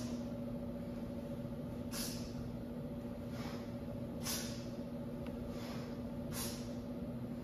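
Sharp, breathy exhalations, one about every two seconds with fainter breaths between, as a person works through kettlebell cleans and single-arm swings. A steady low hum runs underneath.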